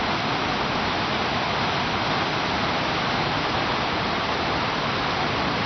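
Whitewater river rapid rushing: a steady, even noise of fast water with no breaks or changes.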